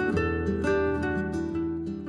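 Background instrumental music of plucked strings, starting to fade near the end.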